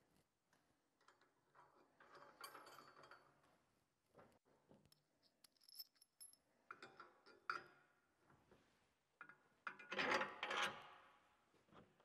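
Small grade 8 bolts and washers being handled and fitted by hand onto a steel hitch mount: faint scattered clicks, clinks and rubbing, with a louder rustling scrape near the end.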